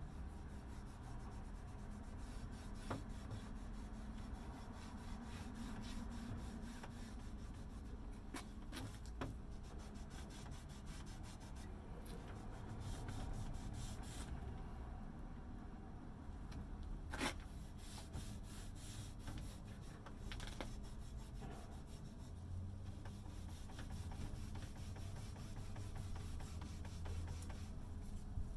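Faint rubbing on a surface, with a steady low rumble and a few light clicks.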